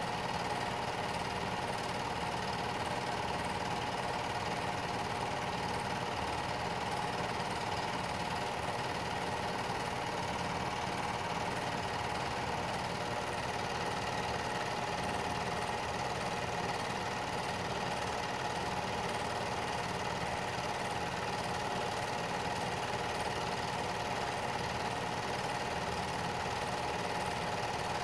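Home-movie film projector running: a steady mechanical whir that holds even throughout.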